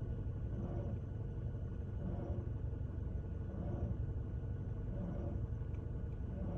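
Toyota Scion xD's A/C compressor running with the engine, making a weird noise that the owner takes for a compressor fault. The noise swells about every second and a half over a steady low engine hum and faint steady whines.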